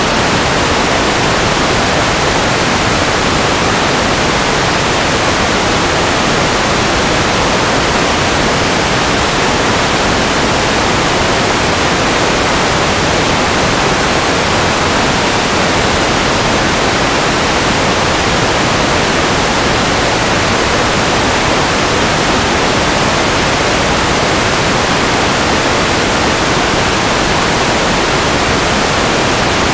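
Steady, loud static hiss with no pitch or rhythm in it and no motor whine, the kind of noise an analog FPV video receiver records on its empty audio channel.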